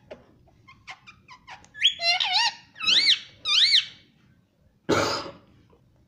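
Indian ringneck parrot making a few soft clicks, then a run of loud, squeaky calls that rise and fall in pitch for about two seconds. About five seconds in comes one short, harsh, noisy rasp.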